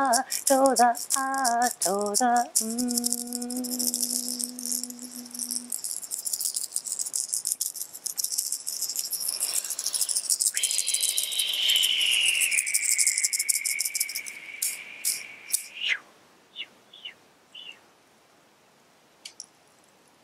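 A woman's voice ends a chant on a long held note, over a hand rattle shaken fast and steadily. Partway through, a high whistled tone slides down and holds for several seconds, then cuts off. The rattle stops with a few last separate shakes and soft clicks.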